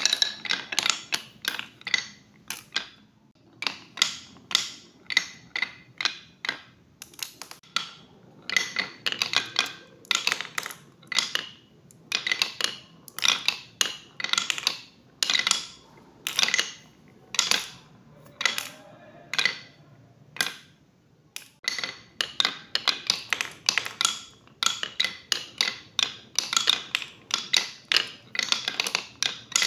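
Glass marbles rolling down HABA wooden chutes, clicking and clacking against the wooden track and against each other in quick runs, with short pauses between runs.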